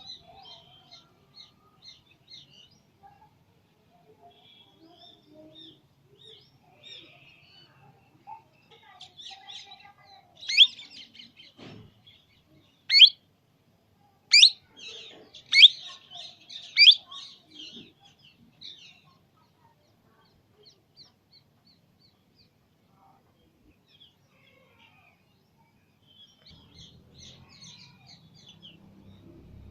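Baby Indian parrot chirping: soft high chirps throughout, with a run of about five loud, sharp calls in the middle and a quieter stretch after them.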